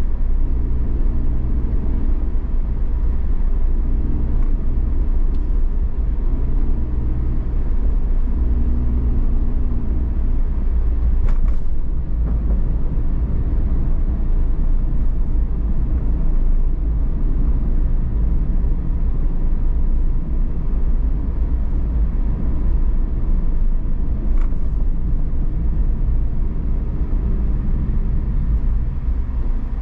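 Car driving on city roads: a steady low rumble of engine and tyre noise, with two faint clicks about twelve seconds apart.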